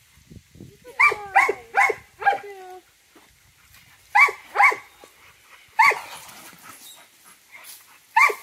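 Dog barking: four quick barks about a second in, two more around four seconds, then single barks near six seconds and near the end.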